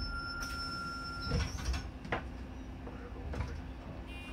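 Inside a city bus: the steady low rumble of the engine and cabin, with a few short rattles or knocks about one and a half to two seconds in. A faint thin steady tone stops about a second and a half in.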